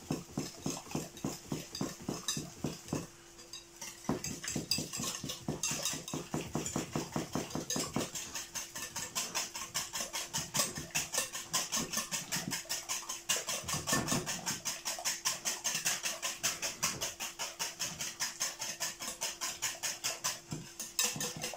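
Wire whisk beating a sauce in a mixing bowl: quick, even clinks and swishes against the bowl, about four strokes a second, with a brief pause about three seconds in.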